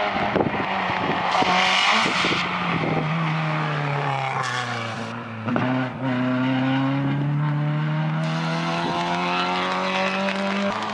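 Rally car engine at full throttle on a wet tarmac lane, its tyres hissing through standing water. The engine note falls as the driver lifts off, with a sharp crack at the turn-in, then climbs steadily as the car accelerates away.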